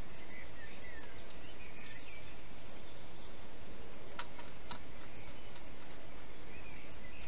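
Steady hiss of a quiet garden at night, with faint high chirping calls in the first two seconds and two sharp clicks about four and a half seconds in.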